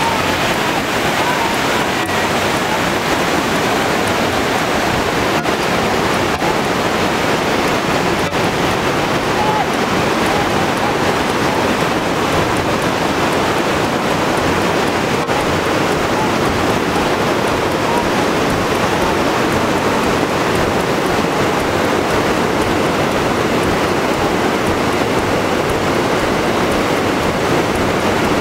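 Whitewater rapids rushing in a loud, steady, even roar.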